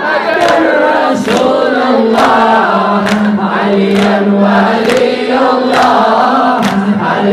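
Latmiyah: men's voices chanting a lament over a microphone, with a sharp rhythmic slap about once a second from mourners beating their chests.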